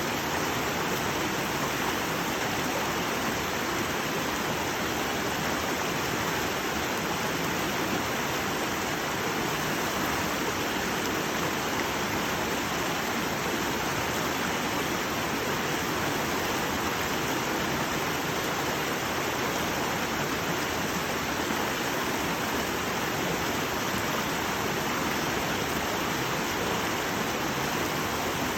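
Shallow brook babbling, a steady, even rush of running water.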